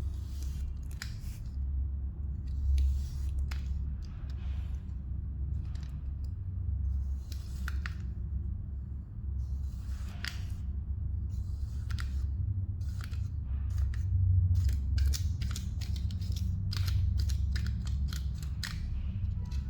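Kinetic sand being cut, a long run of short, crisp crunches at an uneven pace over a steady low hum.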